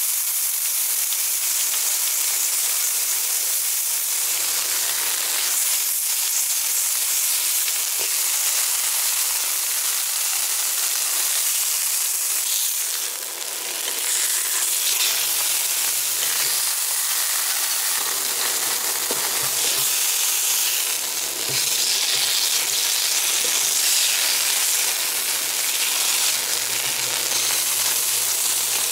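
Pork chops sizzling steadily in hot oil in a frying pan, their edges held against the pan with tongs to sear. The sizzle dips briefly about halfway through.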